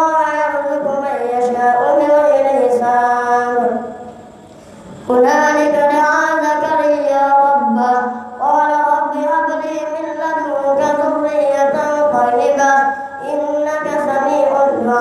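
A boy's voice reciting the Quran aloud in a melodic chant, with long held notes, as he leads a congregational prayer. There is a short breath pause about four seconds in, then the recitation goes on.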